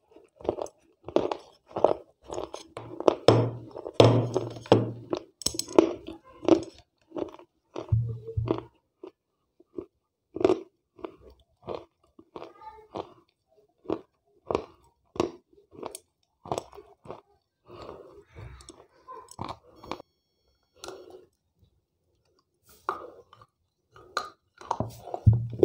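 Close-miked crunching and chewing of wet slate pencils: sharp, gritty bites and crackly chews in quick succession, thinning out through the middle and picking up again near the end.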